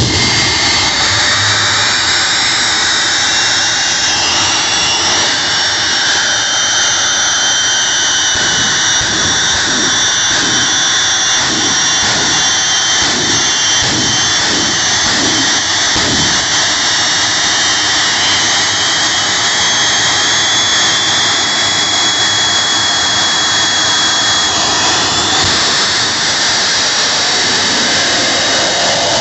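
Jet engines of a jet-powered semi truck running hard, a loud steady roar with a high turbine whine. Through the middle comes a stretch of rhythmic low pulsing, about two a second, and near the end the whine shifts.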